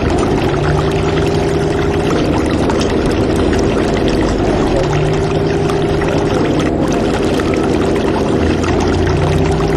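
Narrowboat under way on a canal: a steady rushing noise with a low hum that swells and fades about every four to five seconds.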